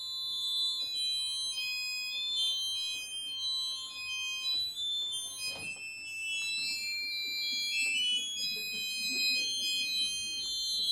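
Electronic music of several high, steady pure tones layered and starting and stopping at different moments, with a lower tone sounding on and off. A single sharp knock rings out about five and a half seconds in.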